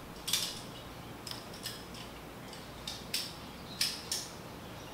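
Irregular sharp metallic clicks and clinks, about seven over a few seconds, of hand tools and loose parts being worked on a partly stripped 5.3-litre LS V8 engine.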